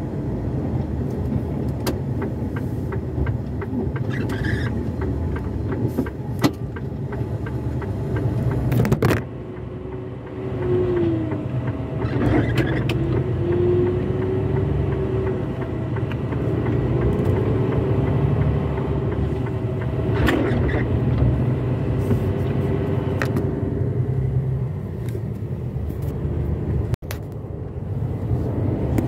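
Truck engine and road rumble heard from inside the cab while driving. The engine note rises and falls a few times as it pulls and changes speed, with scattered knocks and rattles.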